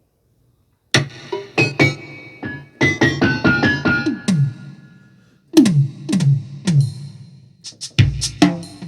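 Korg M1 synthesizer patch played in short, sharp percussive notes, many sliding quickly down in pitch like synth toms, in three runs starting about a second in, with a deeper hit near the end.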